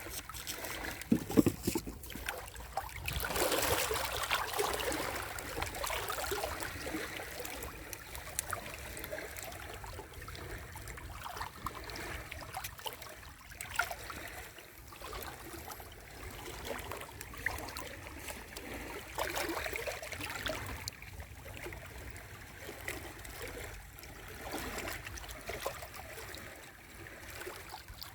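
Sea waves washing and lapping at the shore, swelling louder a few seconds in and again about two-thirds of the way through. A couple of sharp bumps about a second in are the loudest sounds.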